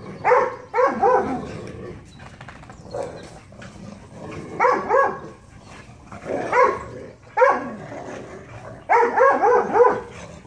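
Dogs barking during rough play-fighting: short clusters of two to four quick barks and yips, repeated several times with brief quiet gaps between.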